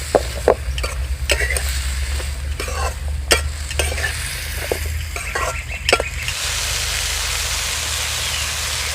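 A spatula scrapes and clinks against a kadai as papaya pieces are stirred in hot mustard oil, over a frying sizzle. The stirring strokes stop about six seconds in, leaving a steady sizzle.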